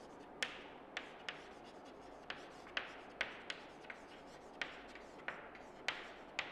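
Chalk writing on a chalkboard: about a dozen sharp taps as the chalk strikes the board, some followed by short scratchy strokes.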